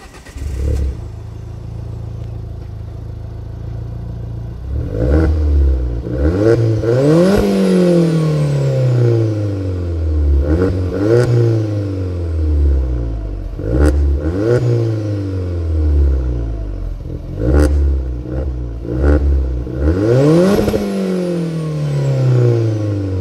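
Alfa Romeo Giulietta QV's turbocharged four-cylinder engine through a Supersprint exhaust, running steadily and then revved several times: each rev rises quickly and falls back more slowly, with sharp cracks among the revs.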